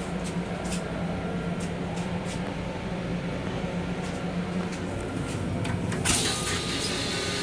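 Steady running hum of an M7 railcar with light rattles in the small restroom, then about six seconds in a sudden loud hissing rush starts as the restroom toilet flushes.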